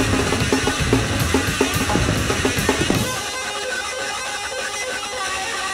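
Live noise-rock duo of drum kit and distorted electric bass: fast, dense drumming over the bass. About three seconds in the drums stop abruptly, leaving the bass ringing sustained notes alone.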